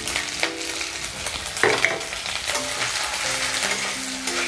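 Chopped coconut sizzling and crackling in hot mustard oil in a metal kadai, with a metal spatula scraping and stirring it around the pan.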